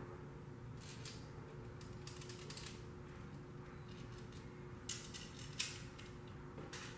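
Small metal bow accessory parts being handled and screwed together by hand: faint, irregular clicks and light scrapes, a short run of them about two seconds in and the sharpest click a little past five seconds.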